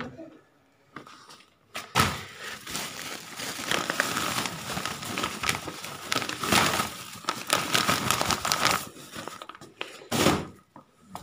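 Plastic garment packaging rustling and crinkling as wrapped clothing packs are handled and set down, with a sharp knock about two seconds in.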